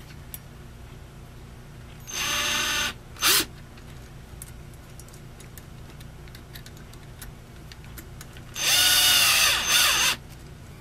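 Cordless drill driving screws into a small RC crawler chassis part, running in short spurts. There is a run of under a second about two seconds in, a brief blip just after, then a longer run of about a second and a half near the end, with small clicks of handling in between.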